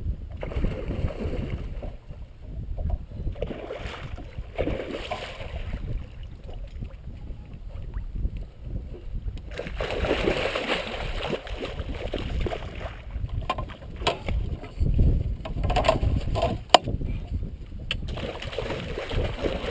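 Water splashing and churning as a hooked muskie is fought beside a boat, with wind rumbling on the microphone. There is a louder rush of water about ten seconds in and a few sharp clicks near the end.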